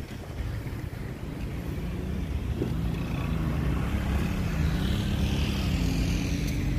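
Road traffic: a vehicle engine on the nearby road growing louder, with a wavering engine tone that rises toward the end, over a steady low rumble.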